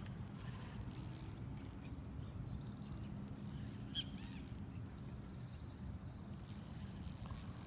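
Spinning reel working in short, high-pitched spurts as a hooked jack crevalle is played and brought in on the line, over a steady low hum.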